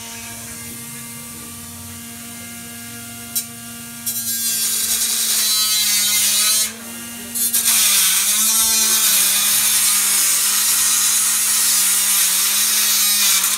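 Small battery-powered DC motor with a propeller, switched on by joining its wires: a loud buzzing whir starts about four seconds in, cuts out briefly near the middle and starts again, its pitch wavering. A steady hum sounds underneath throughout.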